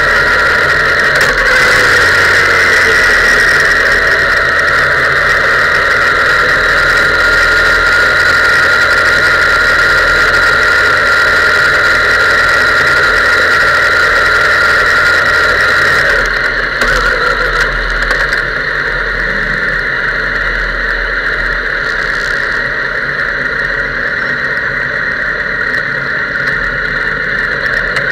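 Suzuki sportbike engine running at low revs, heard through its onboard camera, with a steady high-pitched whine over it. About halfway through the deeper engine rumble drops away and the sound gets slightly quieter.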